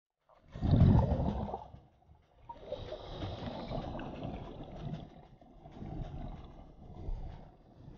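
Scuba regulator breathing heard underwater through the camera housing: a loud burst of burbling exhaled bubbles about a second in, then steady bubbling and rumble.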